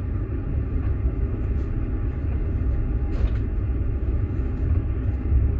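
Passenger train running, heard from inside a platzkart sleeping car: a steady low rumble of the wheels on the rails.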